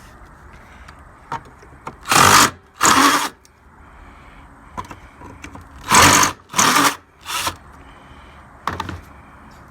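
Handheld power drill-driver run in short bursts of about half a second, mostly in pairs, backing out bumper fasteners; loud enough that it 'blew somebody's eardrums out'.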